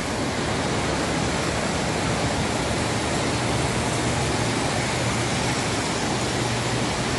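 Steady rumbling whir of Standard gauge tinplate toy trains running on the metal track of a large layout, with a low hum under it.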